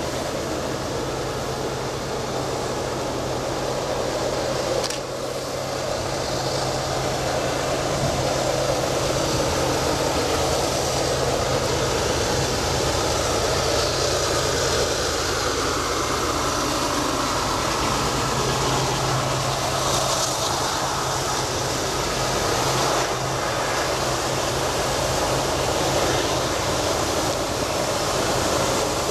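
Diesel-powered train running by, a steady low engine drone under broad rolling noise that holds throughout.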